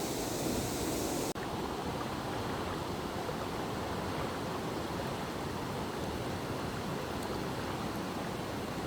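Steady rush of fast-flowing stream water. The high hiss drops off suddenly about a second in, leaving a duller, steady rush.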